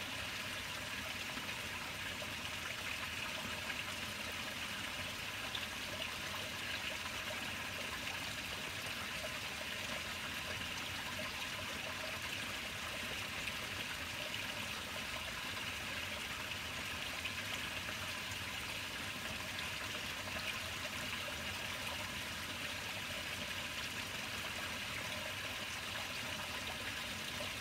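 Steady running water in a hatchery rearing tank, an even flowing trickle that does not change.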